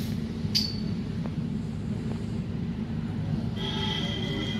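Sawmill machinery running with a steady low drone, with a sharp high click about half a second in and a brief high whine near the end.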